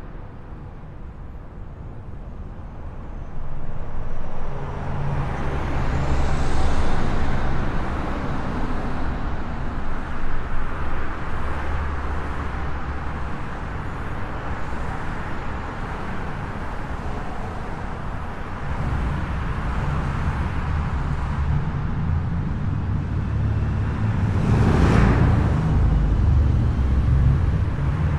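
Highway traffic: a continuous wash of tyre and engine noise from passing cars and trucks, swelling and easing as vehicles go by. One vehicle passes especially loudly near the end.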